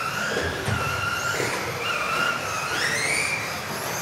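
Several electric RC off-road buggies racing together, their motors whining in overlapping pitches that rise and fall as they accelerate and slow through the corners.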